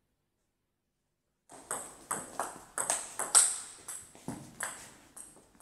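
Table tennis rally: the celluloid-type ball clicking off the rackets and bouncing on the table in quick alternation, about three hits a second, starting about a second and a half in.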